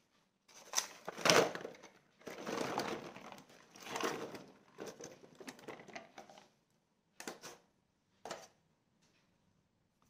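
Small sweet peppers, calamansi and cherry tomatoes tumbling out of a wooden bushel basket onto a granite countertop: a run of knocks and rolling for about six seconds, loudest a little over a second in, then two short knocks near the end.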